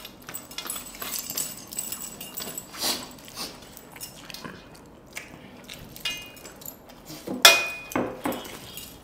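Eating at the table: fingers working rice and chicken on steel plates, chewing, and metal bracelets clinking, in scattered small clicks and rustles. About seven and a half seconds in there is a louder knock that rings briefly.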